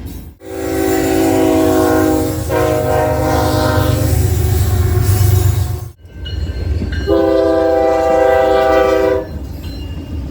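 Locomotive air horn sounding a chord over the low rumble of a train, in two long blasts: the first from about half a second in, cut off abruptly near six seconds, the second from about seven to nine seconds.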